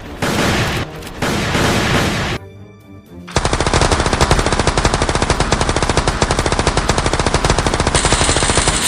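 Dubbed machine-gun sound effect: after two short rushes of noise in the first couple of seconds, a long continuous burst of rapid automatic fire starts about three and a half seconds in and keeps going.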